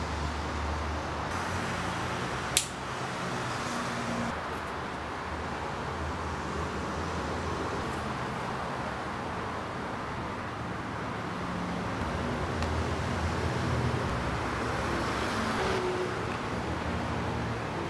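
Steady background noise with a faint low hum, like distant traffic or a fan, and one sharp click about two and a half seconds in.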